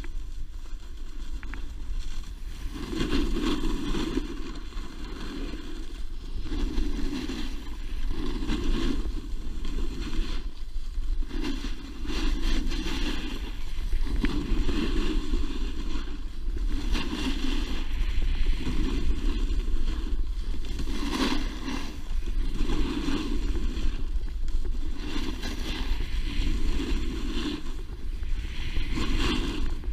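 Snowboard scraping over packed groomed snow during a run, swelling at each turn about every two seconds, over steady wind rumble on the microphone.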